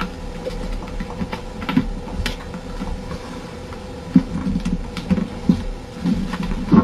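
A sheet of paper being folded and creased by hand against a tabletop: irregular soft taps, rustles and presses. A faint steady hum runs underneath.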